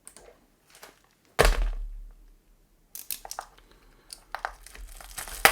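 A package set down on the workbench with one solid thud, then its packaging handled with light crinkling and clicking.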